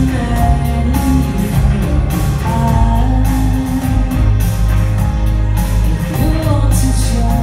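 Live rock band playing a song: a female voice sings long, gliding notes over electric guitars, bass, keyboard and drums, with a steady low bass throughout.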